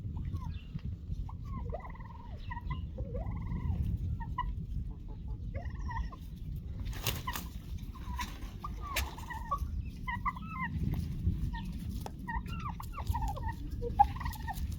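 Farmyard poultry calling: many short, bending calls one after another, over a steady low rumble, with a couple of sharp clicks midway.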